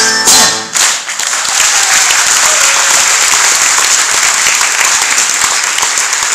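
A live band's last notes end about a second in, and the audience breaks into steady applause that continues to the end.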